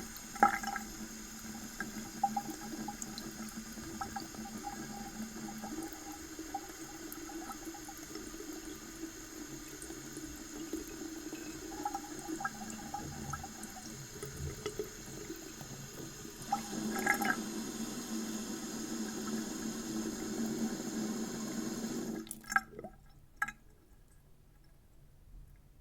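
Water tap running a thin stream into a sink, the flow swelling for a few seconds about two-thirds of the way in. The water stops abruptly about 22 seconds in, followed by a few sharp clicks.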